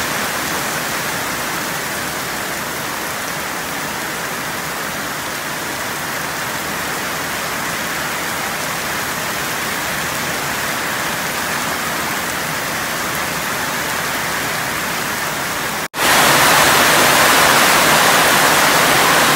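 Heavy rain pouring steadily. About sixteen seconds in, after a cut, louder and closer rain falling on and around a corrugated metal carport roof.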